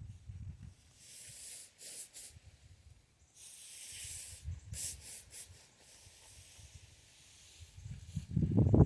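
Several rasping strokes of a tool across a rough surface, each lasting up to about a second. A loud low rumble starts near the end.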